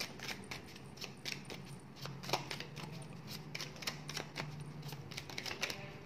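Oracle cards being shuffled and handled by hand: a rapid, irregular run of light clicks and snaps from the card edges.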